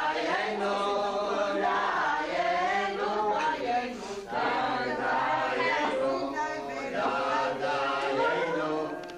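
Several voices chanting together in Hebrew in a traditional Passover Haggadah melody, with a short pause about four seconds in.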